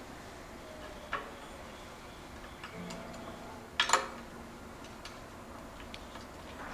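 Small metal clicks and taps as an FSA K-Force WE rear derailleur is fitted to a bicycle frame's derailleur hanger with a hex key. The loudest is a quick double click about four seconds in, with a lighter click before it and faint ticks after.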